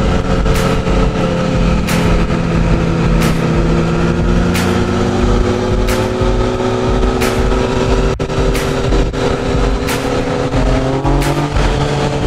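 Yamaha FZ-09's 847 cc inline-three engine pulling under throttle while riding, with wind rushing past the camera. The engine note climbs slowly, then the revs rise sharply about eleven seconds in; faint ticks recur about every second and a quarter.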